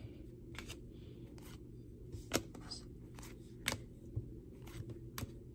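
Cardboard trading cards being handled, giving about five short light clicks and taps as cards are slid from the front of a stack to the back. A faint steady low hum runs underneath.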